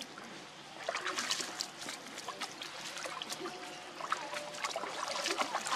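Water splashing and sloshing as several macaques swim and tussle in a pool, with a run of many small quick splashes from about a second in.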